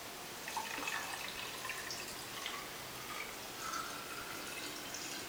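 Warm milk being poured from a glass into a blender jar over sliced banana: a continuous splashing, trickling pour that starts about half a second in.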